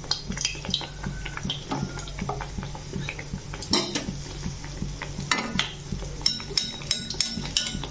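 Battered bottle gourd slice deep-frying in hot oil in a metal kadai, the oil crackling with sharp pops. In the second half a steel ladle clinks several times against the kadai.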